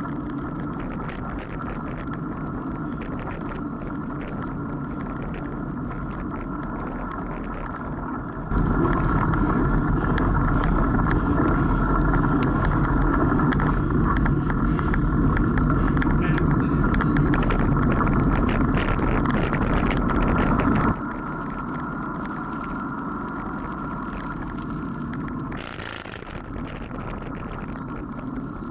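Bicycle riding over a dirt trail: steady tyre rumble and rattling, picked up by a camera riding on the bike. The rumble becomes louder and heavier from about 8 seconds in, then drops back suddenly near 21 seconds.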